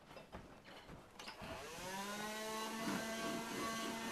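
An electric motor starting up about a second in, its hum rising in pitch for about half a second and then running steadily with a rhythmic pulsing.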